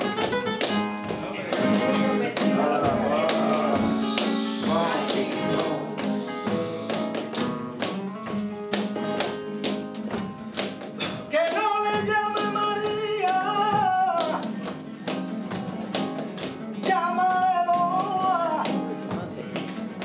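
Flamenco tangos: a Spanish guitar playing in strummed and picked rhythm, with sharp palmas (rhythmic hand clapping) throughout. A male cantaor sings long wavering melismatic lines midway and again near the end.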